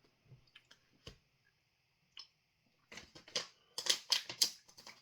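Sharp crackling and clicking handling noises: a few separate clicks, then a quick dense run of them about three seconds in.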